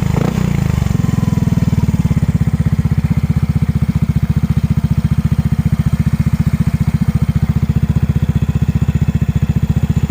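Yamaha Mio i 125S scooter's single-cylinder four-stroke engine breathing through a gutted stock muffler: a brief throttle blip in the first second, then settling to a steady idle with an even, pulsing exhaust beat.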